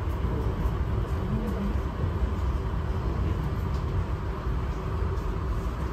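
Steady low rumble inside a moving commuter train carriage, with a few faint ticks from the running gear.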